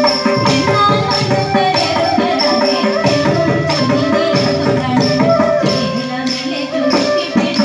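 Thiruvathirakali dance music with sharp, regular clicks of wooden sticks struck together by the dancers.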